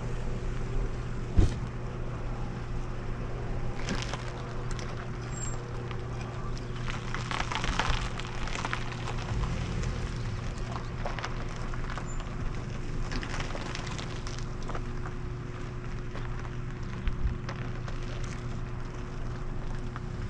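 Steady low hum of a running motor with a constant tone, with scattered clicks and knocks. A sharp knock comes about a second and a half in.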